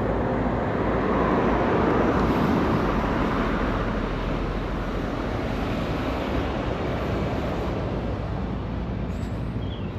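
A road vehicle passing by: its engine and tyre noise swells over the first couple of seconds, then slowly fades away.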